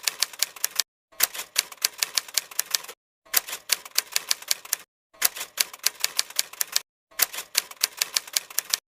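Rapid typewriter-like typing clicks in bursts of under two seconds, each burst cut off by a short dead-silent gap, repeating about every two seconds and stopping near the end.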